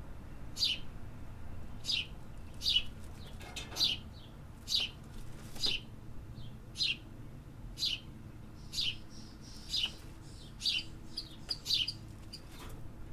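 A bird chirping: short, sharp, high chirps repeated about once a second, with a few softer calls between them.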